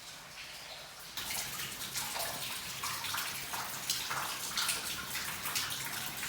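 Water dripping and splashing in a cave, many irregular drips with small plinking notes, growing denser about a second in.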